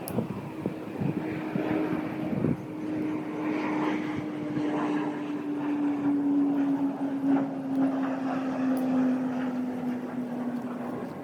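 An engine drone, one steady tone sinking slowly in pitch, with scattered clattering around it.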